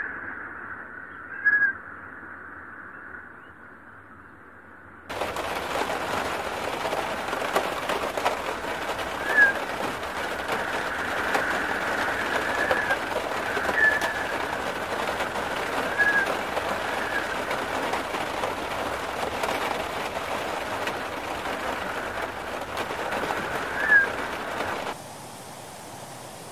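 Heavy rain and wind on a flooded street, a dense steady hiss that starts suddenly about five seconds in after a quieter windy stretch. Short high chirps sound every few seconds over it. Near the end it gives way to a softer, even rush of water.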